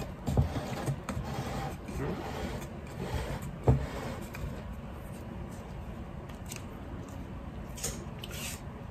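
Quiet handling sounds of thick cake batter being poured and scraped from a mixing bowl into a bundt pan, with a few light knocks of the bowl and spatula against the pan, the loudest a little before the midpoint.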